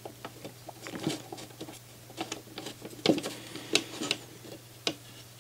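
Scattered light clicks and taps of a CD player's plastic disc tray being pushed and fitted by hand against the drive's loader mechanism, a few louder knocks among them.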